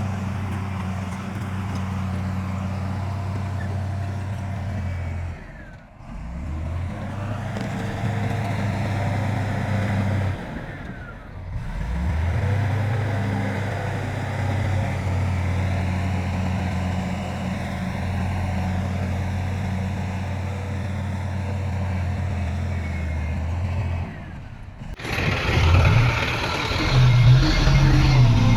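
Heavy diesel earthmoving machinery running steadily with a deep engine drone, broken by a few brief drops. Near the end it turns louder and rougher, with more clatter.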